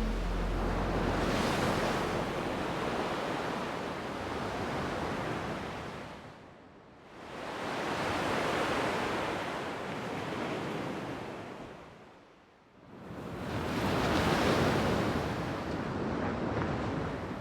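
Ocean surf: three slow swells of waves washing in and drawing back, each rising and then fading away before the next, about every five to six seconds.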